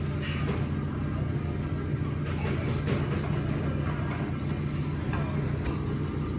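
Restaurant background: a steady low mechanical hum with a few light clinks of dishes scattered through it.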